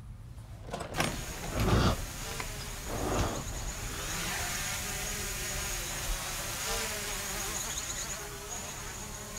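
Small quadcopter drone hovering, its rotors buzzing steadily with a slightly wavering pitch, after two dull thumps in the first few seconds.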